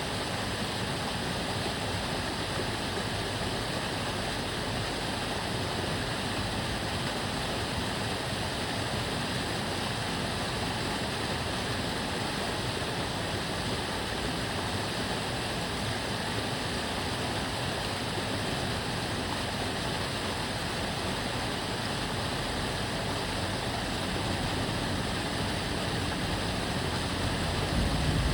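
Water running steadily in a narrow stream channel, a continuous babbling rush. A vehicle's low rumble swells in near the end.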